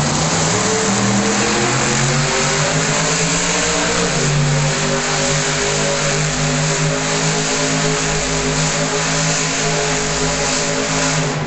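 Monster truck engine running hard and steady as the truck spins donuts, a loud drone whose pitch wavers slightly.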